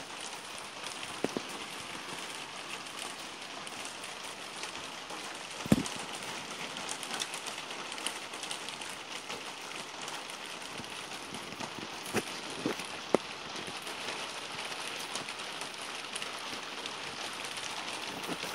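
Steady rain falling, an even hiss, with a few sharp taps of drops hitting close by, the loudest about six seconds in and a quick cluster of three around twelve to thirteen seconds.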